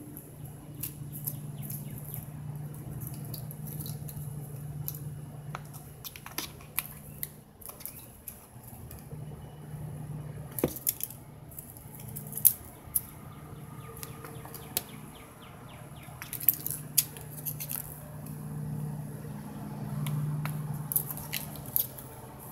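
Scattered light crackles and clicks, with a few sharper ones in the middle and later on, from a Siamese kitten pawing and biting a dry leaf on concrete, over a steady low hum.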